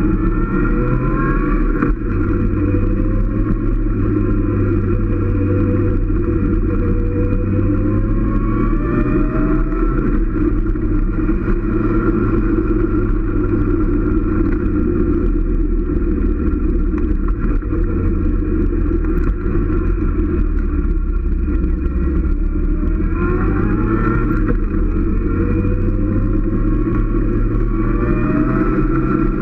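Motorcycle engine running at road speed, its pitch rising several times as it accelerates, over a steady rumble of wind and road noise.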